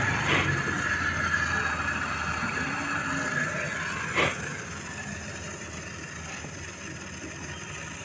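Hand-held gas torch hissing steadily as its flame heats a refrigerator's filter drier to dry the damp desiccant inside. Two sharp clicks, one right at the start and one about four seconds in, and the hiss fades toward the end.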